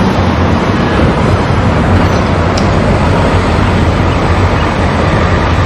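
New Routemaster double-decker bus driving past with its engine running, over steady street traffic noise; a constant low hum runs underneath.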